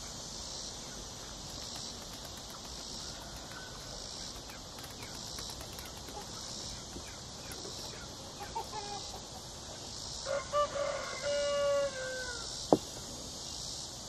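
A rooster crows once, a drawn-out call that falls in pitch at the end, starting about ten seconds in, with a few short clucks just before it. A steady, pulsing, high-pitched insect chorus runs underneath, and a single sharp click comes just after the crow.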